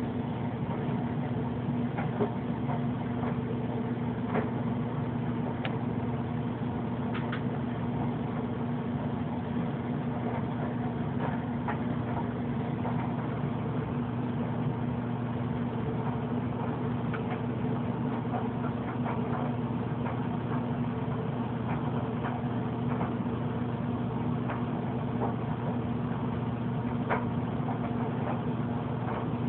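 A steady low hum, like a motor or electrical appliance running, with a few faint scattered clicks.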